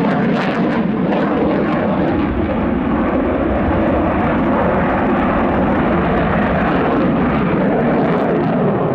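Loud, steady jet noise from a MiG-29 Fulcrum's twin Klimov RD-33 turbofan engines at high power as the fighter climbs steeply overhead.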